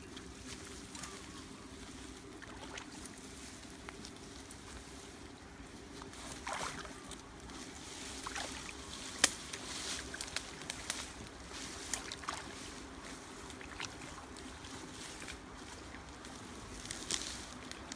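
Water sloshing around a person's legs as he wades slowly into a shallow muddy creek, with scattered short splashes and clicks; the sharpest comes about nine seconds in. A steady low hum runs underneath.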